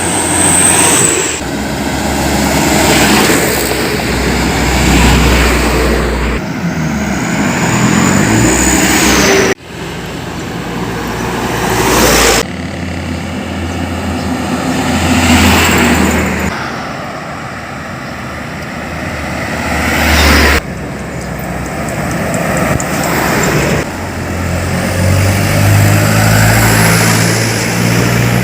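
Road traffic: heavy trucks and cars passing close by, engine and tyre noise swelling and fading as each goes past. The sound changes abruptly several times, like cuts between clips.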